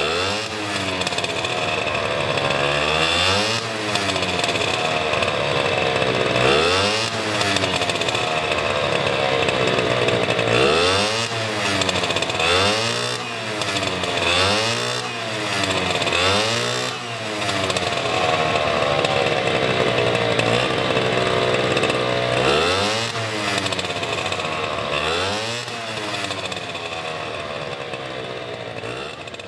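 Tomos Colibri special racer's 50 cc two-stroke single-cylinder engine running through its specially adapted racing exhaust. It is revved by hand in repeated throttle blips, each rising sharply and sinking back, with a quick run of blips in the middle.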